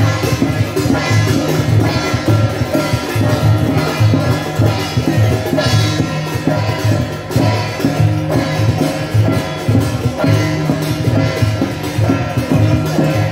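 Loud music with a steady drum beat, about two beats a second, under a sustained melody.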